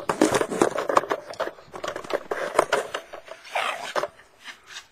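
Rapid, irregular scuffing, rustling and knocking of someone moving quickly on foot with a toy rifle, close to the microphone: footsteps, clothing and the gun knocking about. It eases off about a second before the end.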